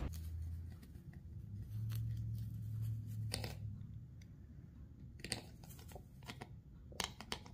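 Soldering iron running solder along the fluxed copper-foil edge of a stained glass piece: faint crackles and sharp ticks in small clusters, the loudest about three and a half, five and seven seconds in, over a low hum in the first three seconds.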